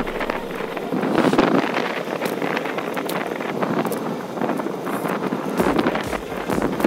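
Wind buffeting the microphone of a camera riding on a moving bicycle, with scattered clicks and rattles from the ride. A low rumble joins near the end.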